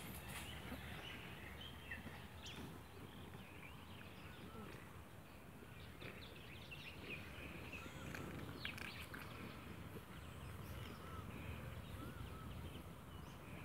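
Quiet outdoor background noise with scattered short bird chirps and a few light scuffles and rustles.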